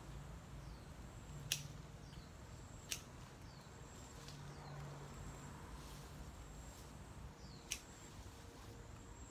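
Hand pruning shears snipping through leafy branch stems: three sharp snips, the first two about a second and a half apart and the third near the end. Faint short falling chirps of small birds come and go behind them.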